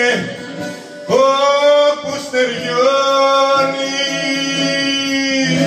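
A man singing a Greek song into a hand-held microphone over recorded backing music. After a short dip about a second in, he holds one long sung note.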